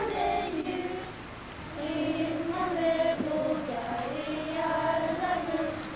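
A Lucia procession choir of girls and young women singing a slow, sustained melody together, with a short break between phrases about a second in.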